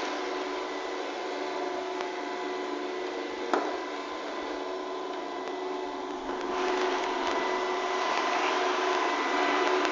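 Robot vacuum cleaner running: a steady motor whine and brush hiss. A single sharp knock about three and a half seconds in, and the running grows louder about two-thirds of the way through.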